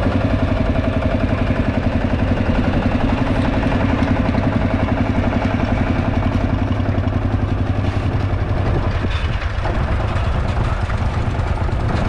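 Tractor engine running steadily with a fast, even pulse, easing off a little about nine seconds in.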